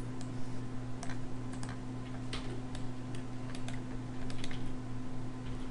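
Computer mouse and keyboard clicks, about ten irregular, unevenly spaced clicks, over a steady low hum.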